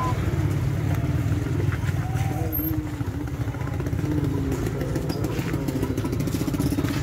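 A motorcycle engine running steadily, a low pulsing rumble, with faint voices.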